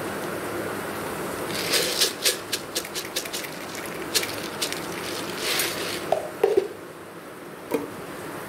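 Whole black peppercorns poured onto a steel plate, landing in a quick scatter of sharp ticks and rattles from about two seconds in, thinning out with a last few clicks near the end, over a steady background hiss.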